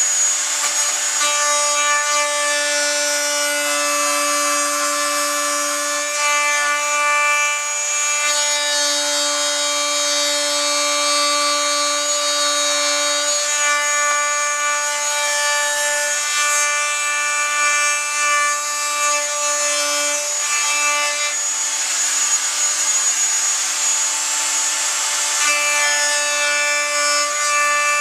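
Electric router running with a steady high whine while cutting a shallow mortise for the latch plate into the wooden edge of a door, with a rough cutting noise under the whine. The whine weakens and comes back several times as the bit is moved through the wood.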